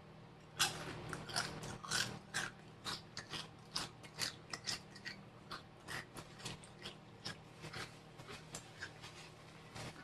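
A person biting into and chewing Takis rolled tortilla chips close to the microphone. A loud crunch of the first bite comes just over half a second in, then a steady run of crisp crunching chews, about two or three a second, that get softer as the chips break down.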